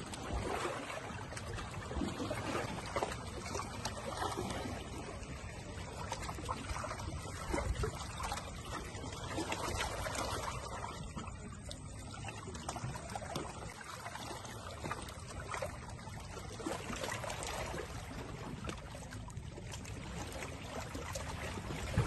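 Small lake waves lapping and splashing against shoreline rocks.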